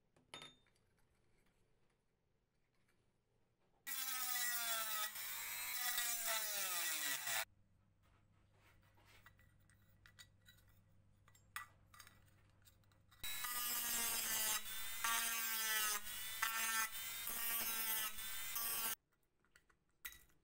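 Small handheld power tool running in two bursts, one of about three and a half seconds and a longer one of about six seconds, its motor pitch sagging and wavering as it works on the flashlight's thin sheet-metal body. Light clicks and scrapes of handling in between.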